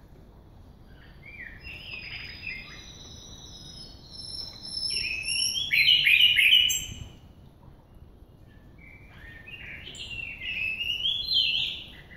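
A songbird singing in three runs of quick, varied phrases with thin high notes above them, the loudest about six seconds in.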